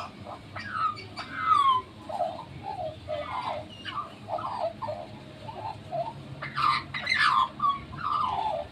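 A bird singing: a varied run of short warbled notes, most of them falling in pitch, with a few louder, harsher calls about two-thirds of the way through.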